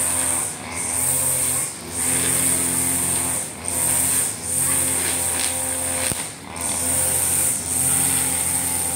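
Backpack brush cutter's two-stroke engine running at cutting speed as it trims short grass. Its level dips briefly every second or two as the head sweeps.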